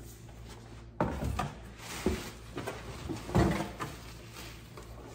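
Packaging being handled: plastic wrap rustling and cardboard boxes knocking as a pod box is lifted out of a shipping box. It starts about a second in, with several short knocks, the loudest a little past the middle.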